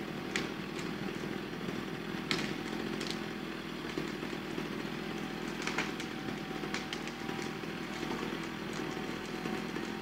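A machine engine running steadily at one speed without revving, with scattered short sharp knocks and cracks over it.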